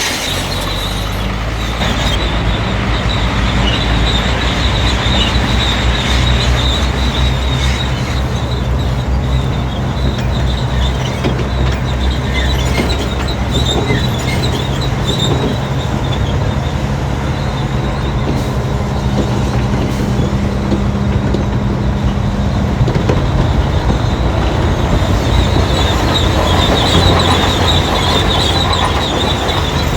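Crawler bulldozer's diesel engine running steadily under load while its steel tracks squeal, the squeal strongest near the start and again near the end.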